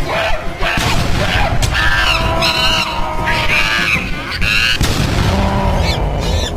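Cartoon soundtrack: background music mixed with a run of short, shrill cries that bend in pitch, and cartoon sound effects.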